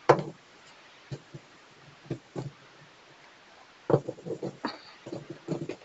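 Plastic Faber-Castell Connector felt-tip pens clicking and knocking as they are handled and snapped together by their clip caps. There is a sharp click at the start, a few light clicks after it, and a busier run of clicks about four seconds in.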